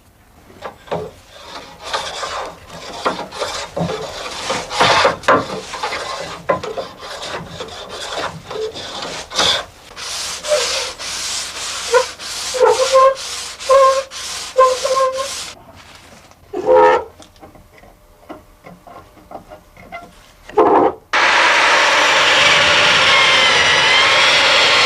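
Brass concave hand plane shaving along a wooden mast in repeated scraping strokes, a few of them with a short squeak. About 21 seconds in, a loud motor starts and runs steadily with a wavering whine.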